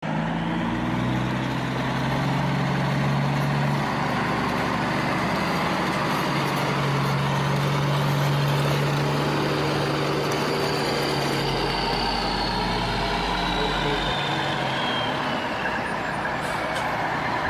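A truck engine running steadily, with a low hum under a broad rushing noise.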